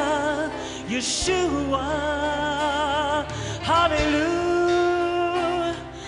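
Live worship band of keyboards, guitar and drums accompanying a singer who holds long notes with a wide vibrato.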